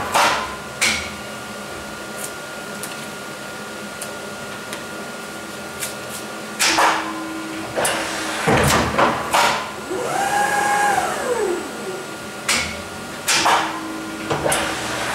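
Schneider Senator E-Line guillotine paper cutter running: a steady machine hum broken by several heavy clunks, with a motor whine that rises and then falls about ten seconds in.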